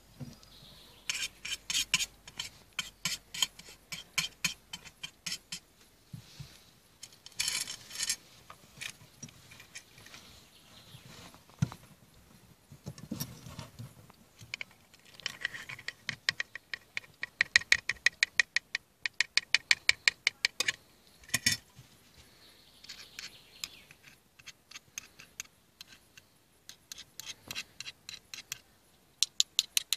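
Runs of sharp scratching clicks, several a second, from a pocketknife blade scraping match heads off matchsticks over a metal tin and working the match-head powder into the steel cup of a homemade prangija.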